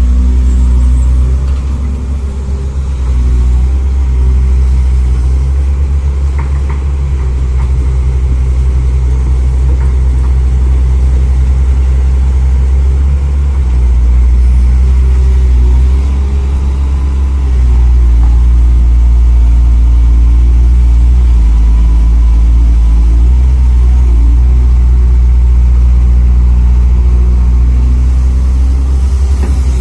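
Radio-controlled construction models running with a steady, loud engine-like drone that shifts in pitch and load a few times.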